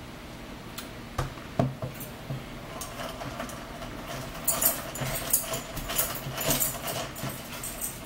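Eating sounds at a table: two sharp knocks about a second and a half in, then a fork clinking and scraping on a plate and crunchy chewing of spinach salad in short, uneven bursts.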